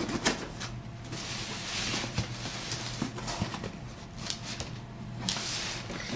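Cardboard shipping box being opened and handled: rustling and scraping of cardboard, with scattered light clicks and taps.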